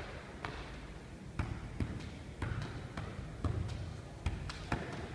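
A football being juggled: short thuds of the ball against foot and knee, about two touches a second in an uneven rhythm.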